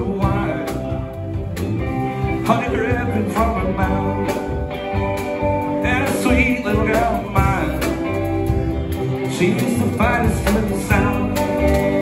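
Live rock band playing: two electric guitars over a drum kit with cymbals, with notes bending up and down.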